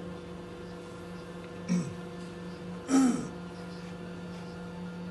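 Drinks vending machine running with a steady hum while it prepares a hot soya milk. Two short, loud noises break in, one just under two seconds in and another about a second later.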